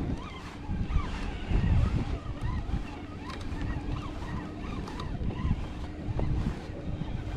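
Wind buffeting the microphone over water lapping and splashing against a kayak.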